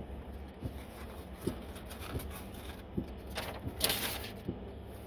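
A man chewing a chicken sandwich: soft, regular mouth knocks about every 0.7 s, with a short hissing burst a little before the end, over a low steady hum.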